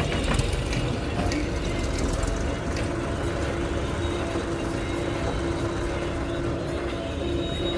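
Heavy diesel engine running steadily, with a droning tone and scattered clicks and rattles in the first couple of seconds.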